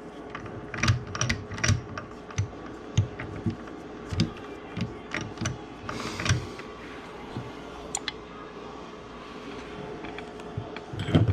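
Irregular metal clicks and knocks of engine parts being handled and worked loose inside a split ATV engine case, with a louder cluster of knocks near the end, over a faint steady hum.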